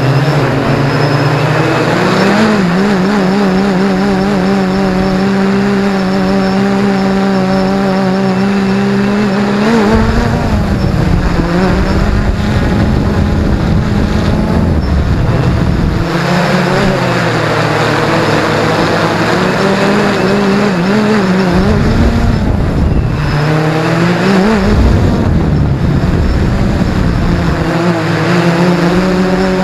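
XK X380 quadcopter's motors and propellers buzzing steadily in flight, as heard from the drone's own camera; the pitch wavers and shifts as the throttle changes. At times a low rumble of wind buffets the microphone.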